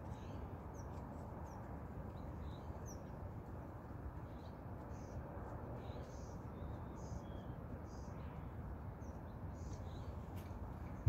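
Outdoor ambience: a steady low background hiss with scattered short bird chirps, and a single sharp knock right at the end.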